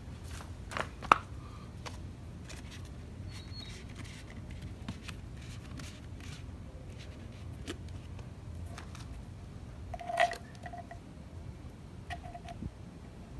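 A plastic oil bottle handled against a lawn edger's engine: scattered clicks and knocks, with a sharp knock about a second in and a louder short knock with a brief squeak near ten seconds, while the man gets ready to fill the engine with small-engine oil.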